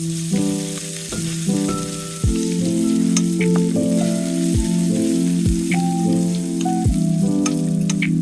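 Food sizzling as it fries in a pan, a steady hiss, under background music of held pitched notes that change every half second or so, with a low falling thump every second or two.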